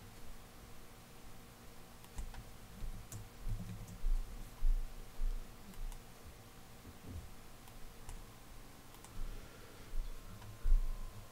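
Computer keyboard being typed on: scattered, irregular keystroke clicks while code is edited, with several dull low thuds in between.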